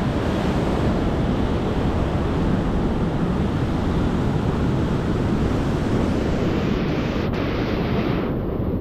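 Ocean surf breaking on the beach, mixed with wind buffeting the microphone: a steady rushing noise.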